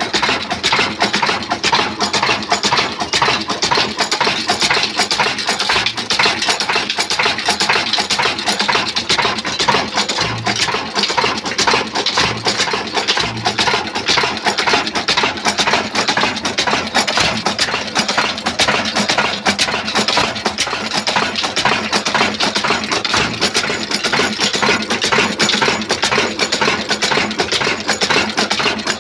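Pakistani-made 26 hp stationary diesel engine (Modern Industries, Daska) running steadily, with a fast, even mechanical clatter.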